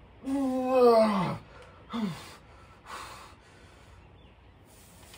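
A man's long, strained groan of effort while lifting a weight, dropping in pitch at its end. A shorter grunt follows about two seconds in, then a quick breath out about a second later.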